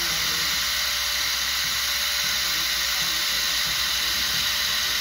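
Small angle grinder with a cutting disc cutting through a steel rebar end at a concrete wall: a continuous high-pitched grinding hiss over a steady motor whine, holding even throughout.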